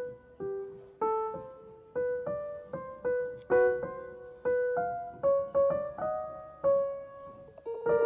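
Background music: a slow piano melody of single notes, each one struck and left to fade.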